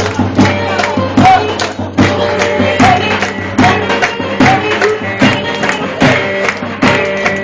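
Turkish folk dance music played loud and steady, with a driving drum beat under a sustained melody.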